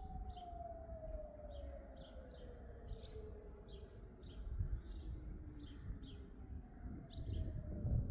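Hörmann ECI DT 600 electronic civil-defence siren sounding its test alarm in the distance, its tone falling slowly in pitch. Birds chirp in quick repeated notes throughout.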